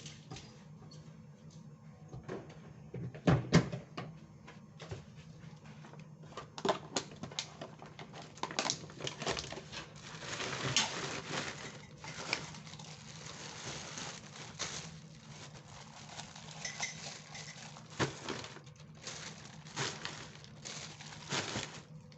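Irregular clatter of kitchenware, with clicks and knocks like utensils and cups being handled, two louder knocks about three seconds in. A steady low hum runs underneath.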